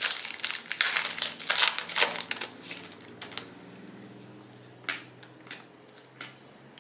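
Foil wrapper of a Topps Finest trading-card pack crinkling and tearing for about three seconds, followed by a few separate light clicks.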